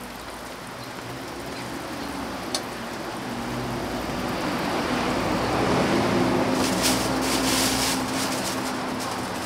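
A motor vehicle passing on the street: its low engine note swells to a peak about two-thirds through and fades, over a steady background hiss.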